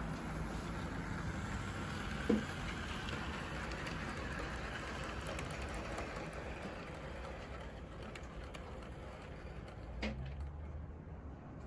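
Model railway locomotive running on track: a steady electric-motor whirr with the rumble of wheels on rail, easing off a little near the end. A light click about two seconds in and a soft knock near the end.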